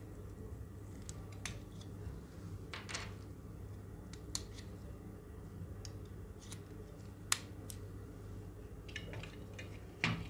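Light clicks and taps of the plastic parts of a headband loupe magnifier being handled and adjusted, scattered unevenly with one sharper click about seven seconds in and a cluster near the end, over a steady low hum.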